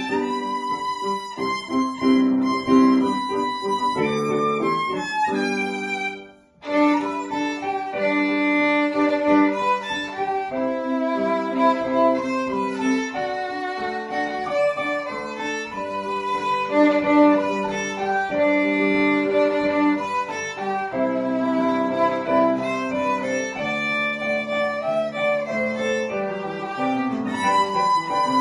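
Violin playing a classical piece with bowed, moving melodic lines and quick note changes; the sound drops out briefly about six seconds in and then carries on.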